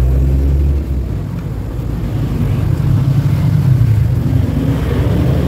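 Motor vehicle engines in nearby road traffic, a steady low drone that swells around three to four seconds in as a vehicle passes close.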